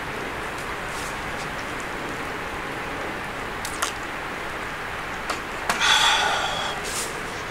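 Thick slice of beef sizzling on the wire net of a charcoal shichirin grill: a steady hiss with a few crackles, and a louder burst of hissing about six seconds in.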